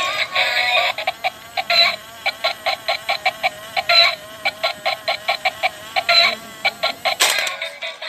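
Battery-operated egg-laying toy hen playing a tinny electronic tune through its small speaker: a synthesized sung melody at first, then a quick run of short beeping notes, about five a second, ending with a sharp click near the end.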